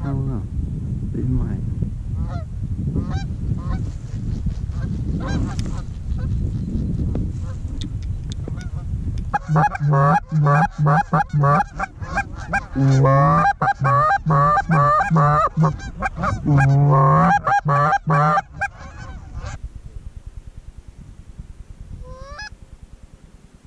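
Geese honking: for the first several seconds, faint distant honks over a low rumble, then about ten seconds of loud, rapid honking and clucking that stops suddenly, with one faint honk near the end.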